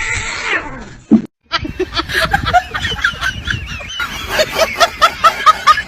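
A hiss, then a sharp knock about a second in, then a flock of geese honking: many short, quick calls overlapping, growing denser toward the end.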